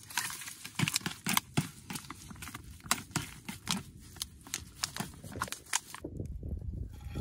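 A knife mixing spiced minced meat in a clear plastic tub: quick, irregular clicks and scrapes of the blade against the plastic. The clicking stops about six seconds in, and a low rumble follows.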